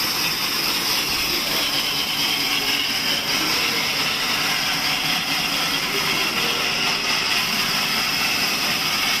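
Table sawmill machine running steadily: an even, unbroken hiss-like machine noise with a high-pitched band, staying at the same pitch and loudness throughout.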